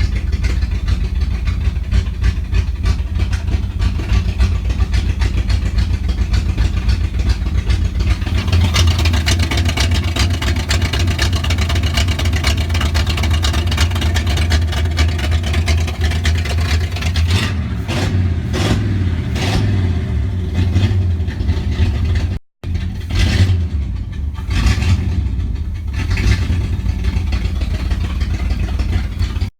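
Chevrolet Camaro engine running steadily, then blipped in a series of short revs over the last third. The owner says the engine doesn't sound good.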